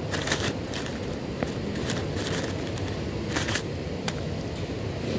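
Paper fast-food bag crinkling and rustling in short, irregular bursts as a squirrel roots around inside it, over a steady low background rumble.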